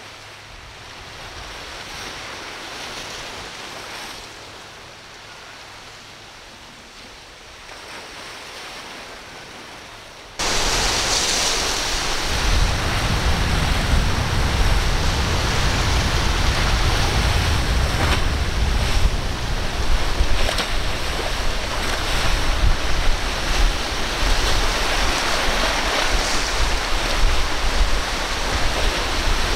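Ocean surf and rough water washing, with wind buffeting the microphone. About ten seconds in, the sound jumps abruptly louder and is dominated by a heavy low rumble.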